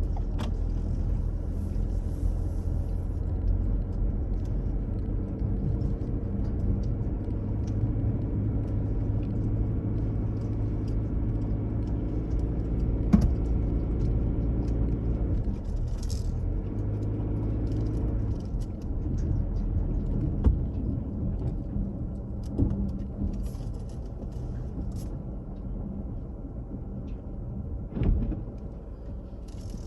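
Inside a moving car, a steady low rumble of engine and tyres on the road, with a few small clicks and knocks. It eases and grows quieter in the last third, as if the car is slowing.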